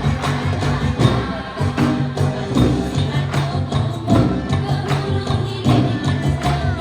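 Live stage music played loud, with a steady beat of bass notes and jingling percussion strikes.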